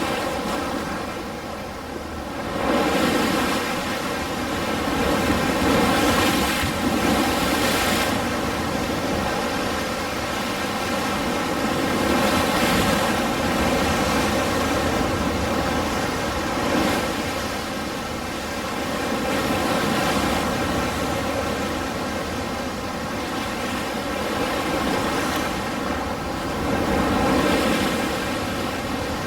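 Ocean surf: a continuous wash of waves breaking and rolling in, swelling and ebbing every few seconds.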